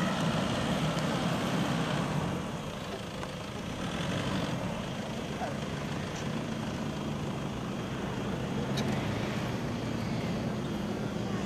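Toyota Land Cruiser 120 engine running steadily, an even low hum.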